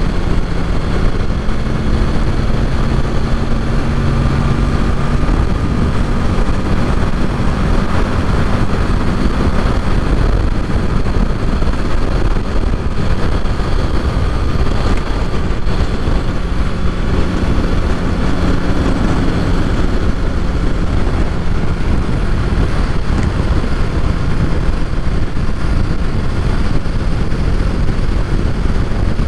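2023 Kawasaki Ninja 650's parallel-twin engine running at a steady cruise, buried in steady wind and road noise on the rider's microphone.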